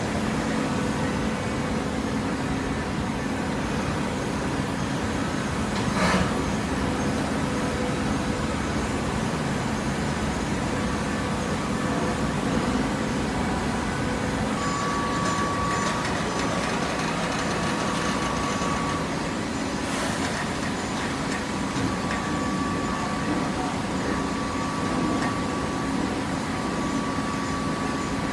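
Horizontal hydraulic carton baler running: a steady machine hum, with a sharp knock about 6 s in and another about 20 s in, and a thin high whine that comes and goes in the second half.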